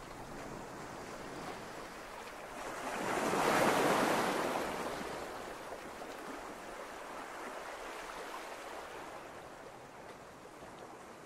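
Steady rushing noise that swells to a peak about four seconds in, then settles back to a low hiss.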